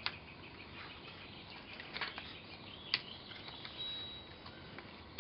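A few light, sharp clicks and taps of small objects being handled, four or so, scattered over a quiet background.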